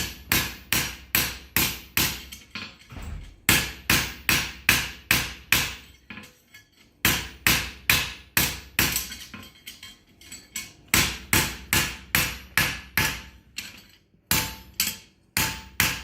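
Hand hammer striking a steel horseshoe on an anvil, about two sharp ringing blows a second in runs with short pauses, flattening the shoe after its nail holes are punched.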